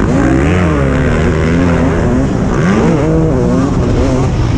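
Motocross bike engine heard close-up from a helmet camera, revving up and down with the throttle: its pitch rises and falls repeatedly through the corner.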